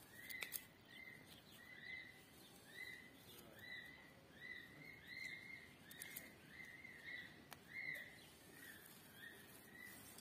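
Newly hatched Indian peafowl chick peeping over and over, about two thin peeps a second, each rising and falling in pitch. A few faint clicks come in between.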